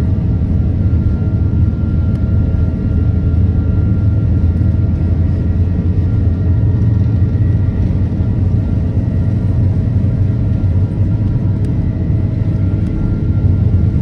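Airliner cabin noise heard from a window seat as the jet rolls along the runway: a loud, steady rumble of engines and wheels with a few faint steady whining tones above it.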